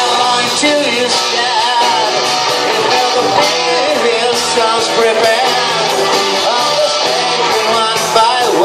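Live rock band playing: amplified electric guitars over drums and keyboard.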